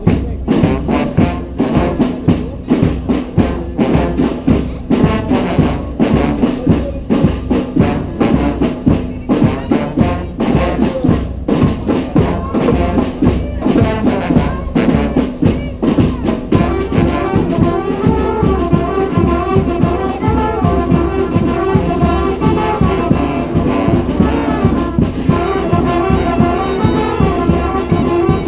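A street brass band with drums plays a cumbia, the drums beating a steady rhythm. About seventeen seconds in, the horns come in fuller with the melody.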